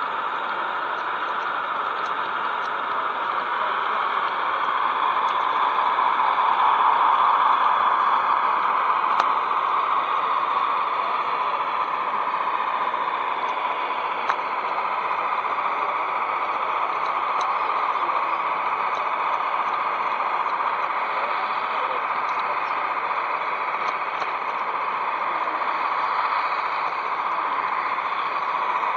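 Steady running noise of an O gauge (7 mm scale) model train, its wheels running on the rails with the motor whirring; it swells a little about a quarter of the way in.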